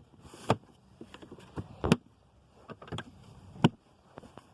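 Chickens scratching and pecking at feed scattered on the ground: a few separate sharp taps and scratches, irregularly spaced.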